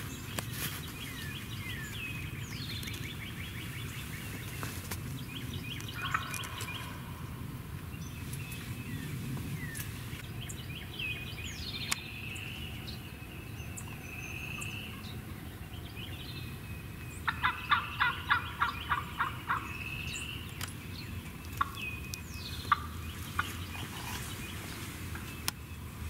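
A wild turkey gobbler gobbling: one loud rapid rattling gobble about two-thirds of the way through, and a fainter one earlier. Songbirds chirp and sing throughout.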